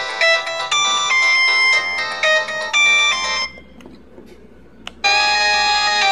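LG KF240 mobile phone ringtones: a polyphonic electronic melody of quick notes ends about three and a half seconds in. After a short pause and a click, the next ringtone starts about five seconds in.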